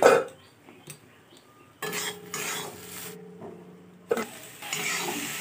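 A spatula stirring and scraping cucumber and papaya pieces in an iron kadhai, opening with a sharp knock. Near the end a steady sizzle of frying comes up under the stirring.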